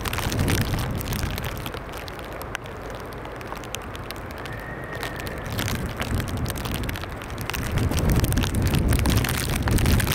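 Jet airliner landing in wind and rain: gusts buffet the microphone with crackling, and the low rumble of the engines grows louder in the last few seconds.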